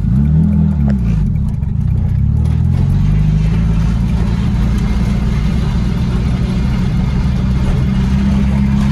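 Car engine under way: the revs dip and pick up again in the first second, then climb steadily as the car accelerates and settle to a steady cruise.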